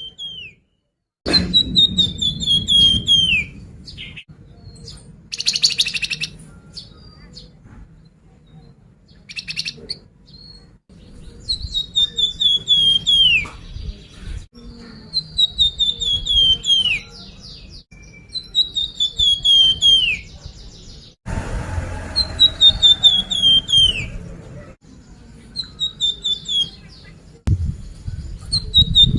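Flamboyan bird singing: the same phrase of quick, falling chirps, each about two seconds long, repeated every few seconds over a low background rumble.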